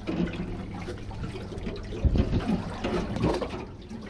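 Water sloshing and trickling against a boat's hull, over a low rumble.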